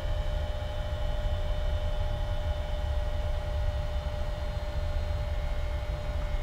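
Power wheelchair's electric seating actuator running with a steady hum and a constant whine as the chair slowly moves between positions.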